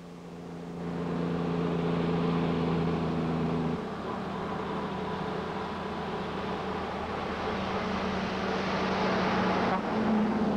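A motor vehicle's engine running with road noise building over the first second; the engine note drops suddenly about four seconds in, and the sound changes abruptly near the end.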